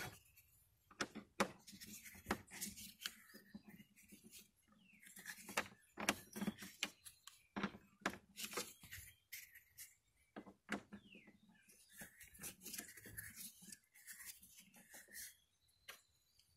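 Allen key clicking and scraping in a star-head screw as the screw is turned out of the mower's rear wheel bracket: a run of faint, irregular small metal clicks and short scrapes.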